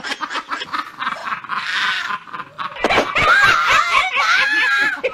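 Laughing and snickering, then about three seconds in a woman's high, drawn-out wailing cry that wavers in pitch.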